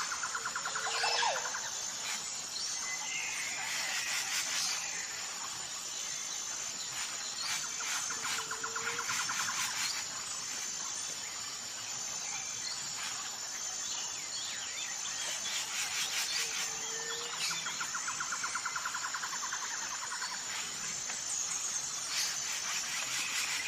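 Birds calling over a steady background hiss, with a high steady tone throughout. A trilled call with a short low note repeats about every eight seconds.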